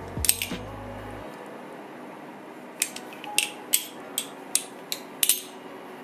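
A metal balisong (butterfly knife) being flipped, its handles clacking against each other and the blade. There is one click just after the start, then a run of about eight sharp clacks roughly half a second apart in the second half.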